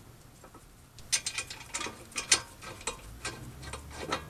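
A 2007 Honda Accord's steel front caliper bracket, fitted with new pad clips, clinking and scraping against the new brake rotor and hub as it is worked into place. A run of irregular light metal clicks starts about a second in.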